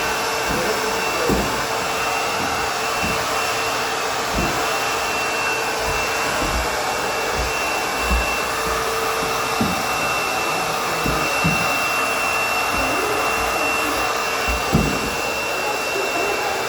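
Vacuum cleaner running steadily with a held whine, with scattered low thumps as it is worked over the stairs.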